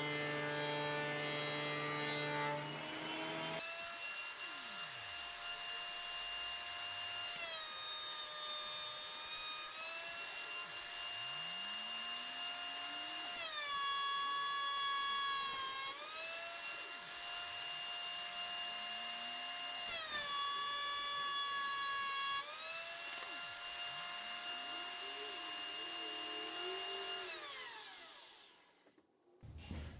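Delta 13-inch planer running, its motor pitch shifting down and back up every few seconds as poplar boards are fed through. Near the end the motor winds down to a stop.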